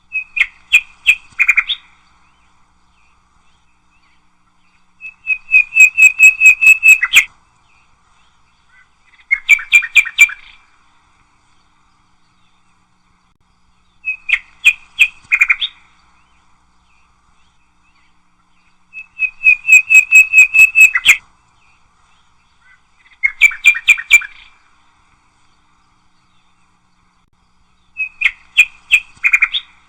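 Nightingale singing in short phrases of rapid, repeated whistled notes, each phrase about two seconds long with pauses of a few seconds between. The same three phrases come round in turn, about twice over.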